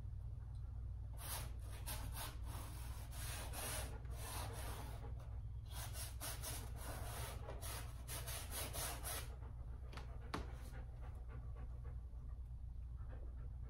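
Paintbrush scrubbing oil paint onto a stretched canvas in a run of quick, scratchy rubbing strokes for several seconds, then a single click about ten seconds in, over a steady low room hum.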